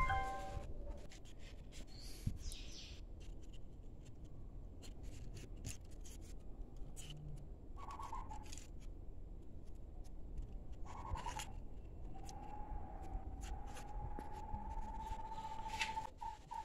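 Light clicks and taps of a plastic speaker housing, drivers and circuit board being handled and fitted together. Near the end a long, steady high call of a bird holds for about four seconds.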